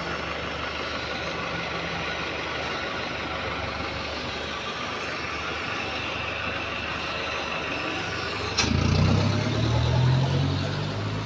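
Volvo B5LH hybrid double-decker bus running with the exhaust leak it is filmed for: steady engine and road noise, then about 8.5 s in a click, after which the diesel engine comes in much louder with a low drone that shifts in pitch.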